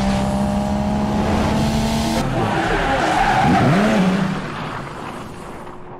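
Car sound effect: a steady, high engine note, then tyres screeching as the car drifts from about two seconds in. The sound fades out near the end.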